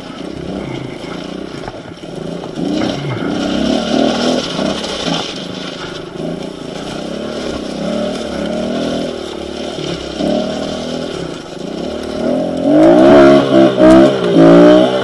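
Kawasaki KLX110 pit bike's small single-cylinder four-stroke engine revving as it is ridden down a dirt track, its pitch rising and falling again and again. Near the end it revs hard and loudest as the bike attacks a steep hill climb.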